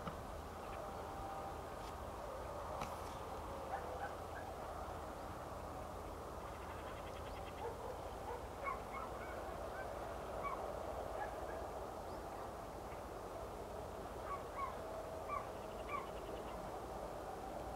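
A large flock of waterbirds calling across the lake: a steady din of many overlapping calls, with single short calls standing out above it now and then, more of them in the second half.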